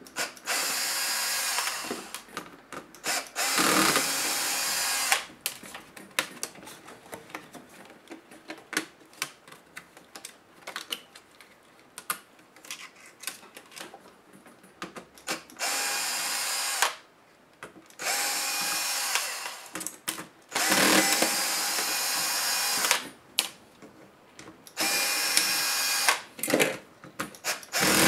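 Cordless electric screwdriver whirring in short runs of one to two seconds, about seven in all: two near the start, then after a long pause five more close together in the second half, driving small screws out of a laptop's internal frame. Light clicks and taps of handling small screws and parts fill the gaps.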